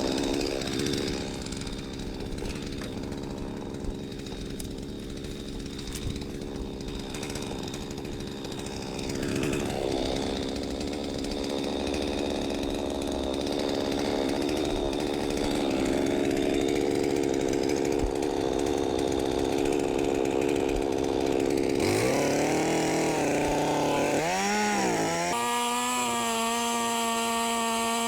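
Chainsaw running under load as it cuts into a tree trunk, its engine note steady. About 22 seconds in the pitch sags and climbs back twice, and from about 25 seconds the engine runs on at a steadier, clearer note.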